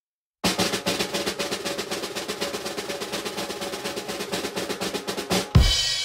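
Snare drum roll starting about half a second in and running for about five seconds. It ends on a loud bass drum and cymbal crash that rings on and fades.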